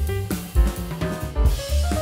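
Background music with a drum-kit beat, with a hiss swelling near the end.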